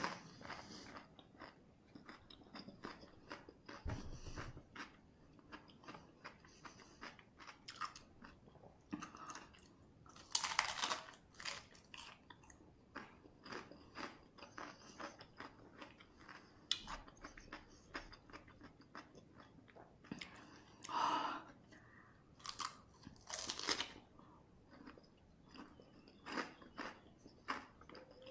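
Crunching and chewing of crisp cucumber close to the microphone: irregular crackly chews, with a few louder crunchy bites scattered through.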